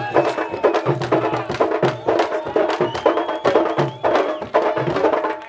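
Candombe drums (tambores) played together in a fast, steady rhythm: sharp stick strikes over deeper hand-struck drum tones.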